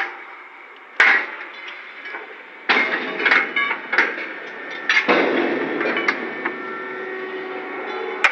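Sharp metal-on-metal clanks and knocks, about eight of them at irregular intervals, as a steel rail-lifting clamp beam is set down on stacked steel rails and its clamps are fitted. The struck steel rings on after the blows, longest in the second half.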